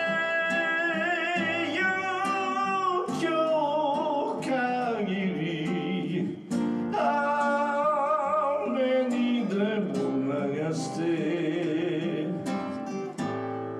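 A man singing a song in Japanese, holding long notes with vibrato, while accompanying himself on an acoustic guitar.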